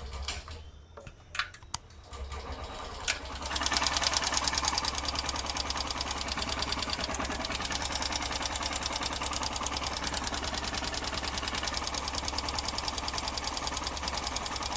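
Honda SP 125 BS6 fuel-injected single-cylinder engine, after a few clicks, starts about three seconds in and settles into an idle with a loud, rapid, even tik-tik ticking from the valve train. The mechanic takes the ticking for loose tappets, with the exhaust valve clearance well over the 0.20 mm spec.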